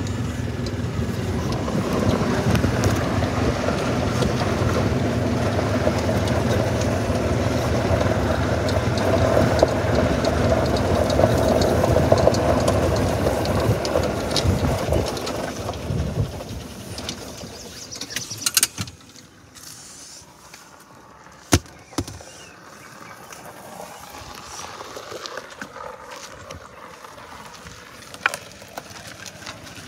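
Golf cart running along, picked up by a phone held against clothing, with fabric rubbing on the microphone. The running noise fades out a bit past halfway, and then come a few sharp clicks and knocks.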